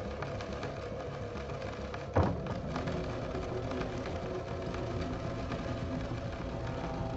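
Low ambient background music with held tones, with one sharp hit about two seconds in.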